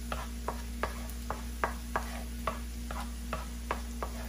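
Wooden spoon stirring minced garlic in oil in a nonstick wok, knocking and scraping against the pan in sharp, uneven clicks about three times a second.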